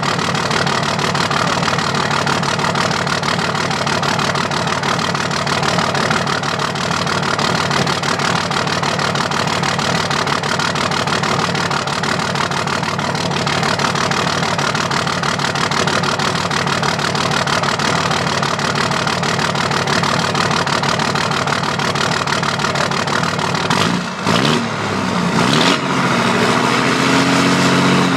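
2005 Dodge Ram 2500's 5.9-litre Cummins inline-six turbo diesel running at idle with one injector not firing, so one cylinder is dead. Near the end it briefly dips, then is revved, the pitch rising and falling and holding higher.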